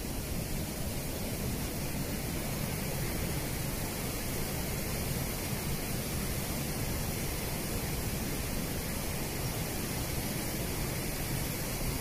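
Steady rushing of a large waterfall, water pouring down one of the Iguazú Falls, an even noise heaviest in the low end.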